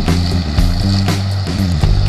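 Background music with a steady beat, about two beats a second, over a bass line that moves from note to note.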